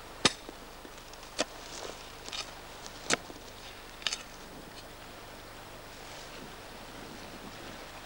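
Footsteps on dry, burnt ground littered with brittle debris: a few sharp cracks and softer crunches, roughly a second apart over the first four seconds, over a steady hiss.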